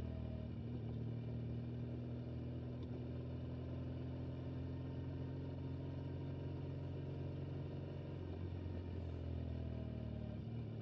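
Motorcycle engine running steadily under way, its note easing off briefly about eight seconds in and picking up again.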